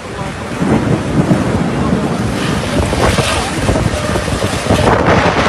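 Thunder rumbling loudly in a thunderstorm, swelling about half a second in and rolling on unevenly, mixed with wind buffeting the microphone.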